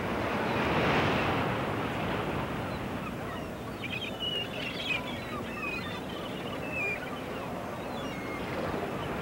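A tape recording of surf washing in, swelling about a second in, with a run of short waterfowl calls over it from about four seconds on.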